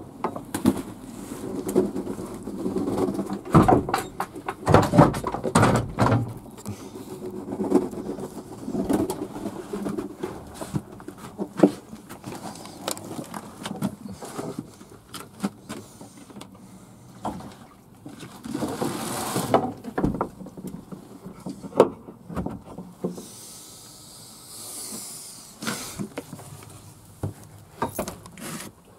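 Footsteps, knocks and camera-handling bumps on the wooden floorboards of a pigeon loft, with a scraping swish about two-thirds of the way through. Fantail doves coo at a low pitch underneath, most clearly in the first third.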